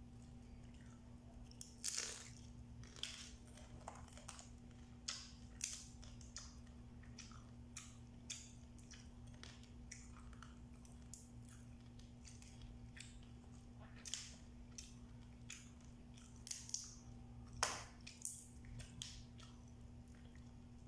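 Cooked blue swimmer crab being picked apart by hand and eaten: irregular sharp crackles and crunches of shell breaking, with chewing. The loudest cracks come about two seconds in and near the end, over a steady low hum.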